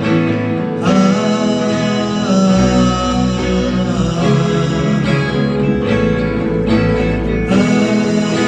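Live band playing an instrumental passage of a pop ballad, led by guitar, with a deep bass line that drops in and out.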